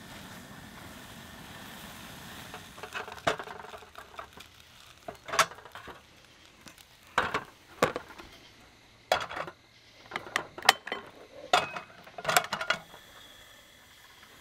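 Metal cookware being handled on an aluminium camp table: a frying pan, plates and the camp stove set down and moved, giving about nine separate sharp clanks and knocks. A steady hiss runs for the first few seconds before the clanking starts.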